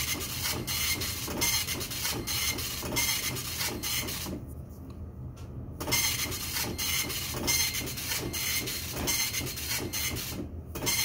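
Old office printer running, a fast train of rasping strokes over a steady low hum; it stops for about a second and a half about four seconds in, then starts again.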